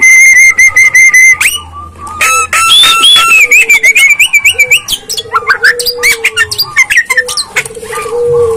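Caged Javan myna calling: a held steady whistle at the start, then a quick run of varied chirps and whistled notes. Lower, drawn-out rasping notes follow in the second half.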